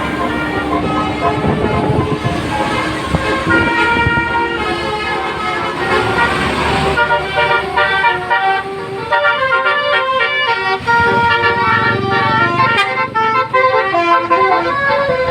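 Indonesian 'telolet' bus horn, a multi-tone musical horn, playing a tune of quickly changing notes over vehicle engine noise. The notes come clearer and faster from about halfway in.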